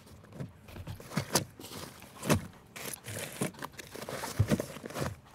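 Bags and gear being handled and shifted: irregular rustling of fabric with a few soft knocks.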